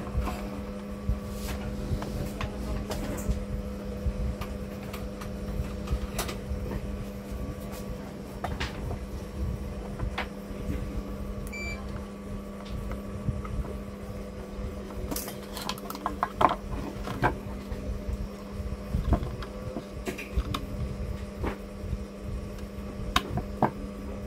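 Light clicks and taps from multimeter probes and a plastic wire-harness connector being handled against a TV mainboard, with a run of quick clicks a little past halfway, over a steady low electrical hum.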